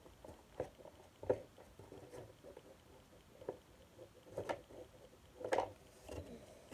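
Trading cards being handled and sorted: irregular light taps and flicks as cards are thumbed through and dropped onto a pile, about one a second, the sharpest about a second in and near the end.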